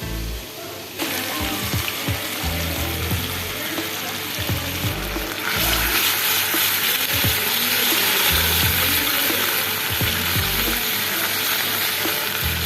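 Marinated chicken pieces frying in hot oil with a steady sizzle, which starts about a second in and gets louder about halfway through. Background music with low repeating notes plays underneath.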